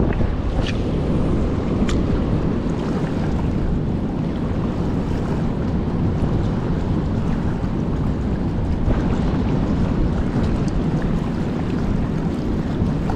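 Steady wind rushing on the microphone over small waves washing across shallow reef rocks.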